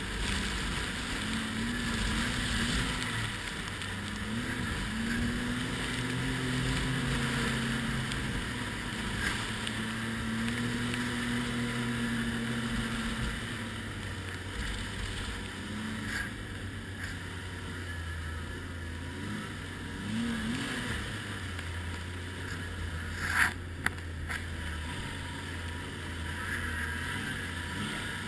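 Ski-Doo Renegade 1200 snowmobile's four-stroke triple engine running under way, its pitch rising and falling with the throttle. One short sharp knock about five seconds before the end.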